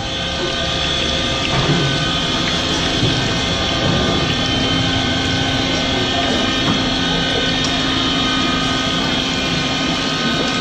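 Flat rice-flour crackers deep-frying in a large wok of hot oil: a steady, loud sizzle and bubbling.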